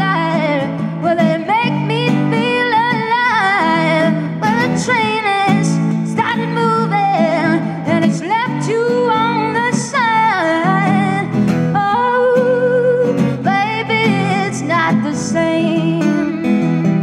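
A woman singing a blues song, accompanying herself on a strummed acoustic guitar, with a wavering vibrato on held notes.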